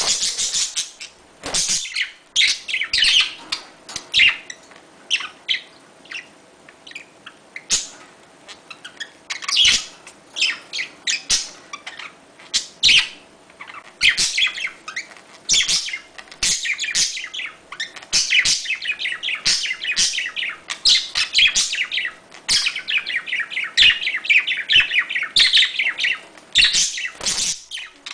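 Budgerigars chattering during mating: fast runs of high chirps and warbles in clusters of a second or two, with short pauses between them.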